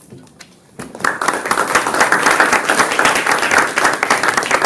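Audience applauding, starting about a second in and carrying on steadily.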